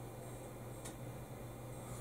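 Quiet room tone with a steady low hum and one faint tick about a second in.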